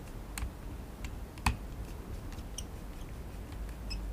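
Precision screwdriver clicking against small screws in a plastic remote-controller case as they are undone: scattered light ticks, with one sharper click about a second and a half in.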